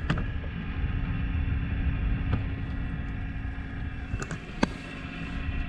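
Gusty wind buffeting the microphone, a rough low rumble that rises and falls, over a faint steady hum, with a few light clicks.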